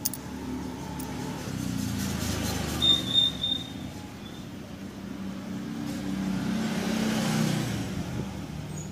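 Road vehicles passing by, their engine hum swelling and fading twice, with a brief high squeak about three seconds in and a click at the very start.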